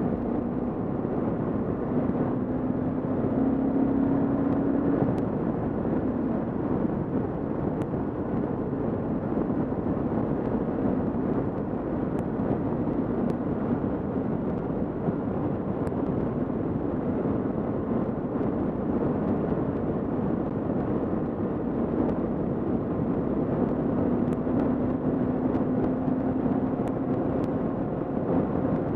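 Kawasaki KLR650 single-cylinder engine running at a steady cruise, with a constant rush of wind and road noise on the helmet-mounted camera's microphone over a faint engine hum.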